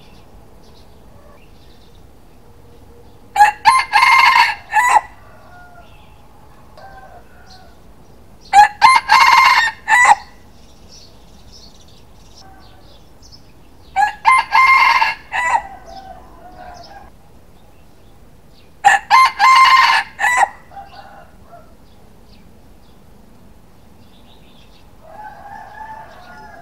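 A red-and-black rooster crowing four times, about five seconds apart, each crow loud and about a second and a half long. Softer calls come between the crows and near the end.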